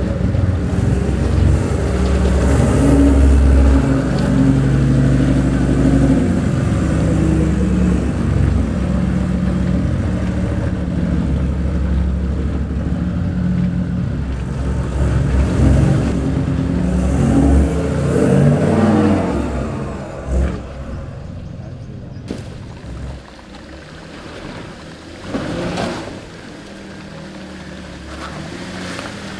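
Toyota 79 Series LandCruiser's engine revving under load, the pitch rising and falling, as the vehicle claws up and out of deep muddy ruts. About twenty seconds in it gives way to a quieter engine running, with one short louder swell near the end.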